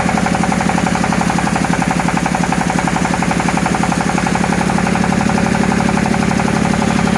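Dowel machine running steadily, its motor and spinning cutter giving a loud, even hum with a rapid, regular pulse.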